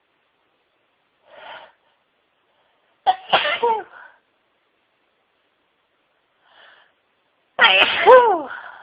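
A woman sneezing twice in a sneezing fit. Each loud, voiced sneeze falls in pitch and comes after a short, faint intake of breath: the first about three seconds in, the second, louder one near the end.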